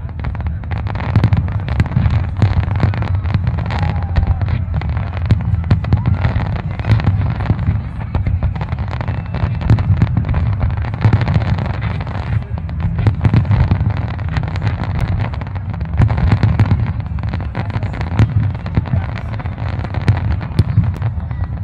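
Fireworks display: a dense, unbroken barrage of aerial shells bursting, many rapid cracks and bangs over a continuous deep rumble.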